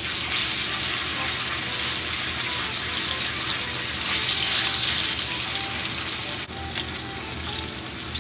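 Wagyu rib steak frying in butter and cooking oil in a stainless steel pan: a steady sizzle. A single sharp click comes about six and a half seconds in.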